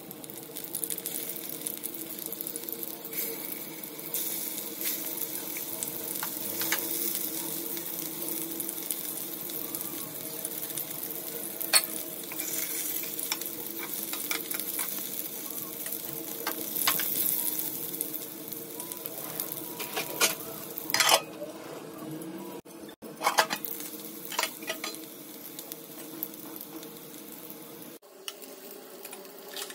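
Stuffed bitter gourds (karela) sizzling steadily as they shallow-fry in oil in a kadai. A spatula scrapes and knocks against the pan now and then as they are turned.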